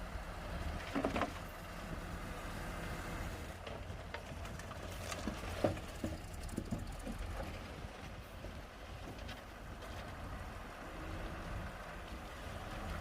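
Bulldozer's diesel engine running with a steady low rumble, with scattered knocks from the machine at work, a cluster of them about five to seven seconds in.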